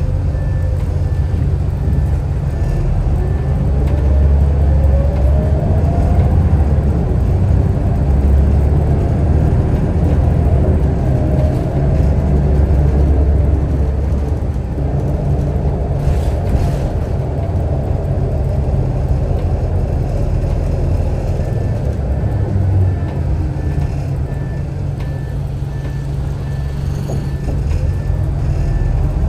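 Scania L94UB bus's 9-litre six-cylinder turbodiesel under load with a heavy low rumble, its ZF Ecomat automatic gearbox whining upward in pitch again and again as it works up through the gears. A regular high beeping sounds at the start and again near the end.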